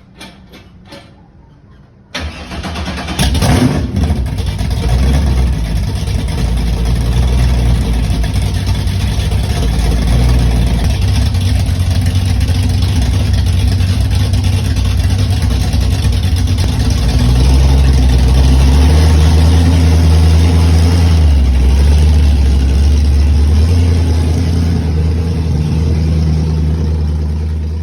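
Supercharged car engine cold start: it fires about two seconds in with a brief flare, then settles into a loud, steady idle whose pitch shifts in small steps.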